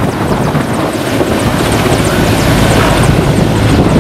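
Mi-17 helicopter flying low overhead, its main rotor chopping loud and steady over the engine noise.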